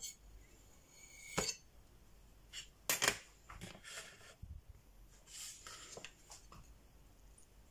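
A metal cake server clinking and scraping against a ceramic plate, then the plate knocked and shifted on the countertop: a handful of sharp clinks and knocks, the loudest about a second and a half and three seconds in.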